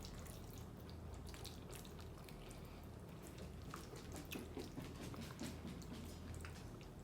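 Close-up wet chewing of a mouthful of creamy fettuccine chicken alfredo: soft, irregular sticky clicks and smacks of the mouth.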